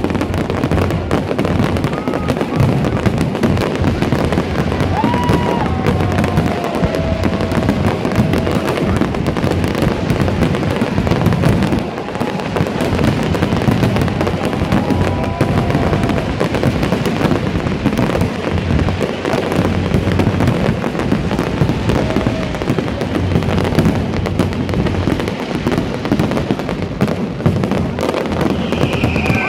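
A dense barrage of aerial fireworks: rapid, unbroken bangs and crackling from many shells bursting at once.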